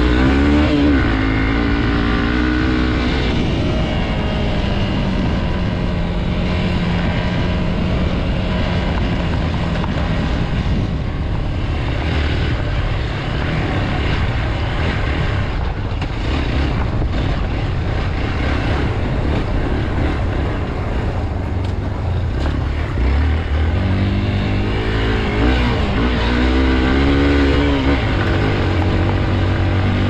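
Hero Xpulse 200's single-cylinder four-stroke engine running under load as the motorcycle rides a dirt trail, the revs rising in the first second and rising and falling again late on.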